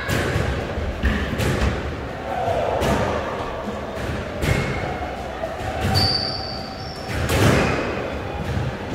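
Squash ball knocks and thuds off court walls and floor, spaced irregularly and echoing in the hard-walled hall, with a brief high squeak about six seconds in.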